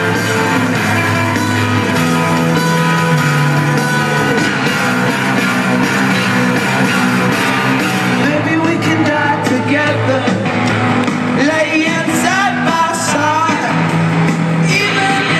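Rock band playing live, with guitar, heard from within the crowd. A male singer's vocals come in about halfway through.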